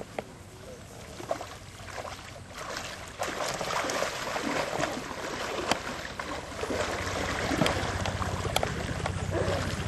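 Three people wading into a pond, their legs splashing and sloshing through knee-to-thigh-deep water, louder from about three seconds in.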